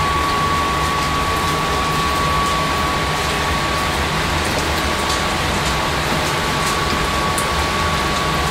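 Steady background hiss and hum with a faint constant high whine. Over it come a few soft clicks and scrapes from a silicone spatula stirring chili and hot dog pieces in a glass baking dish.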